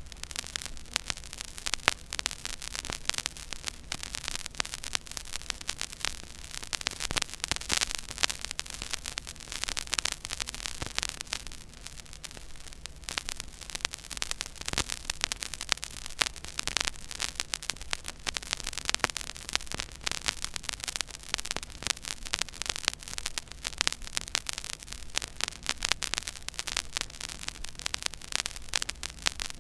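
Stylus tracking a silent groove on a 12-inch 33⅓ rpm vinyl record: a dense, continuous crackle of small clicks and pops over surface hiss, with a low steady hum underneath.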